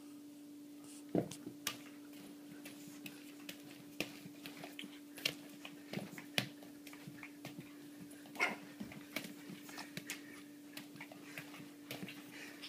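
Irregular knocks and taps as a Pekingese puppy and a bare foot bat a small ball about on a rug, mixed with the puppy's scuffling; the sharpest knock comes about a second in. A steady low hum sits underneath.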